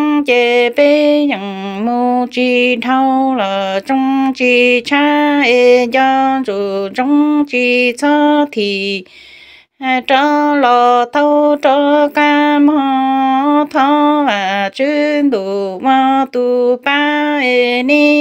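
A woman singing Hmong kwv txhiaj, the chanted sung poetry, solo and unaccompanied, drawing out long wavering notes. She breaks off for a breath about nine seconds in.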